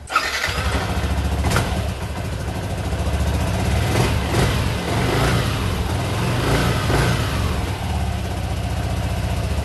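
Yamaha NMAX 155 scooter's single-cylinder engine starting and running steadily, with small swells in level. This is its first run after the air filter and crankcase cover were cleaned and refitted.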